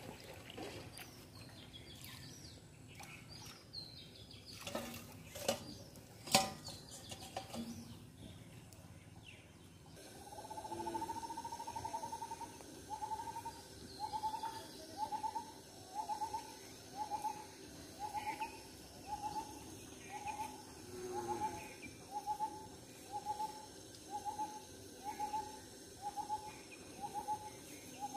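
A bird calling, repeating one short hooting note over and over, about three notes every two seconds, starting about ten seconds in. Before it, a few scattered knocks and clicks.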